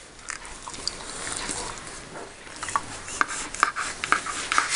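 A dog making short, quick sounds, several a second in the second half, while its foreleg is held and scrubbed for an IV catheter.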